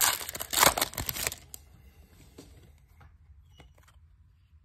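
Foil wrapper of a Topps Chrome trading-card pack crinkling loudly as it is torn open, for about the first second and a half. Then the loose cards are handled quietly, with a few faint clicks.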